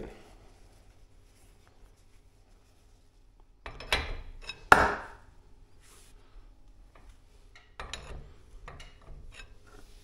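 Steel winding rods knocking and scraping in the winding cone of a garage-door torsion spring as the spring is unwound by hand. Quiet for the first few seconds, then scattered metallic knocks, the loudest about five seconds in and a quick run of them near the end.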